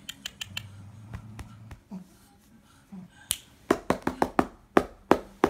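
Sharp clicks and taps, a few scattered at first and then a quick run of loud ones in the second half, with a faint low hum for about a second near the start.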